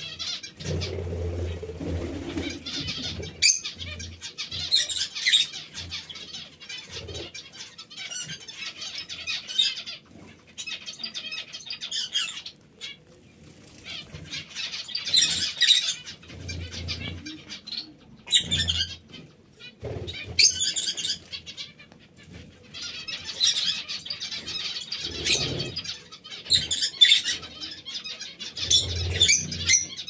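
Small parrots in a mixed aviary of kakariki, lovebirds and budgies, chirping and chattering in repeated bursts every few seconds, with wing flaps, rustling and occasional low thumps between the calls.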